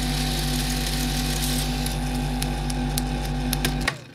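Film projector sound effect: a steady mechanical whir and hum with a fast fluttering rhythm and scattered crackles and clicks. Near the end it stops abruptly as its pitch drops, like the projector winding down.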